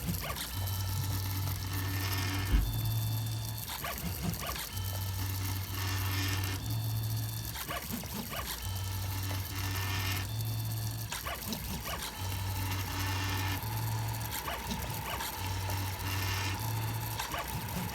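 3D printer's stepper motors whirring in short runs of steady, stepped low tones as the print head and bed move back and forth building the print, with a single sharp knock a few seconds in.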